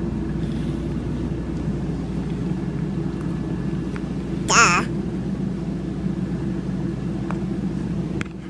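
A cat purring steadily and closely, a low rumble with a rapid flutter. About halfway through there is one short, wavering, high-pitched call.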